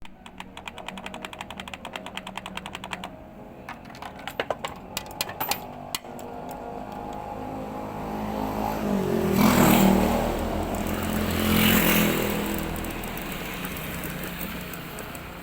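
Claw crane machine working: a fast, even run of clicks for about three seconds, a few scattered clicks, then a whirring that swells twice, loudest a little past the middle, and dies down.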